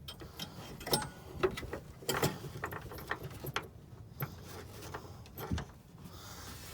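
Irregular small clicks and knocks of a replacement part being worked into place by hand in a truck, plastic and metal pieces tapping and snapping.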